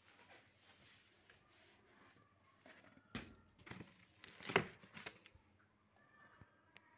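Faint handling of stacked PVC foam wall panels: light rustling and crinkling, then a short run of sharp rustles and clicks about three to five seconds in, the loudest about four and a half seconds in.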